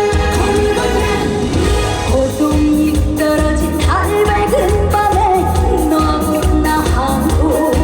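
Live trot song: a woman singing over loud backing music with a steady beat and bass.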